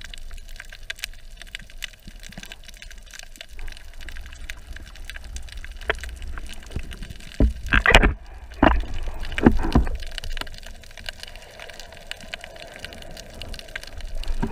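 Underwater ambience picked up through a camera housing: a steady crackle of small clicks over a low rumble, with several louder bursts of noise from about seven and a half to ten seconds in.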